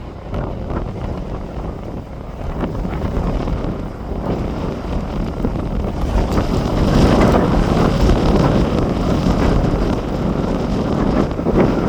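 Strong wind buffeting the microphone in uneven gusts, building louder about halfway through.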